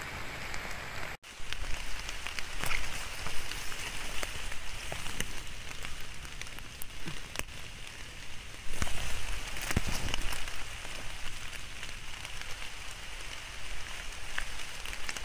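Heavy rain falling on leaves and the forest floor, a steady hiss scattered with sharp drop hits close to the microphone. The sound drops out for an instant about a second in.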